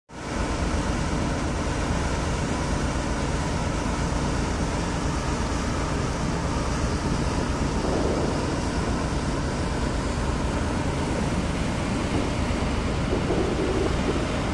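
Steady noise of a ferry underway: a low engine drone mixed with rushing wind and water.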